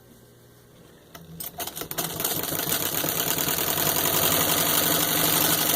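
Antique Jones cylindrical-shuttle sewing machine, driven by a rebuilt electric motor, starting up after a few clicks and stitching through four layers of denim. Its motor hum and a fast, even clatter build up in speed and loudness.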